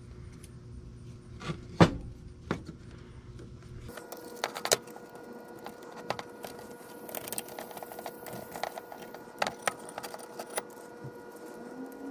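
Small metal plates of a vintage electric horn's mounting bracket clicking and clinking together as they are handled and pulled apart by hand. A few sharp clicks, the loudest about two seconds in.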